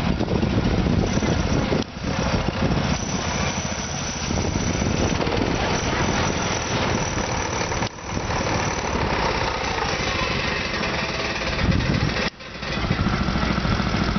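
Small garden tractor engine running steadily as the tractor is driven slowly, with a fast, even pulsing. The sound drops out briefly three times, about 2, 8 and 12 seconds in.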